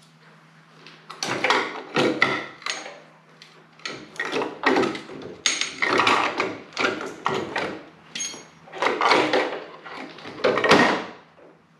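Irregular metal clunks and scraping as a Harley-Davidson Shovelhead transmission case is shifted and worked out of the motorcycle frame, with a couple of brief metallic rings near the middle.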